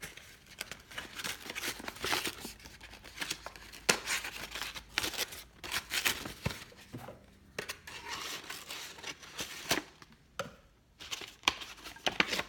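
Paper wrapping being torn and crinkled by hand as it is pulled off a box, in irregular rips and rustles with sharp crackles.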